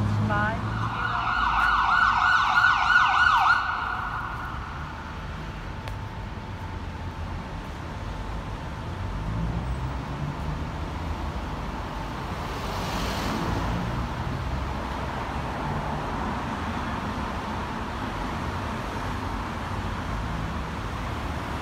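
An emergency vehicle's electronic siren sounds a fast warble for about three seconds, then cuts off. Engine rumble and street traffic remain, with a short hiss about thirteen seconds in.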